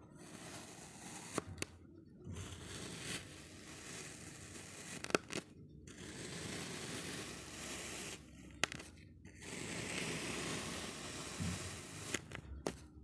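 Stainless-steel knife slicing down through packed kinetic sand: a grainy crunching and crumbling, broken by several short pauses, with a few sharp clicks.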